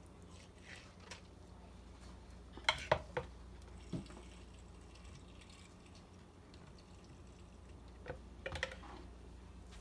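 Metal marinade injector being refilled from a bottle of butter marinade: short clicks of the injector against the bottle and liquid gurgles as the plunger draws marinade, in a cluster about three seconds in and again near the end.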